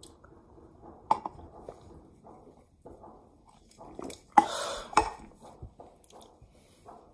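Small glass shot glasses being handled and knocked down on a hard surface: scattered clinks and knocks, the two loudest about four and five seconds in.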